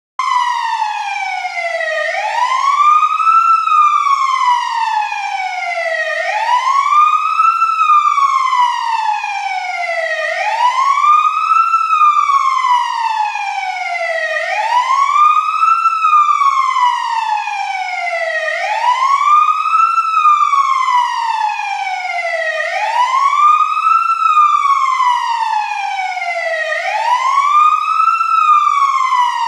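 Fire truck siren sounding a slow wail: the pitch rises quickly, then falls away more slowly, over and over about every four seconds.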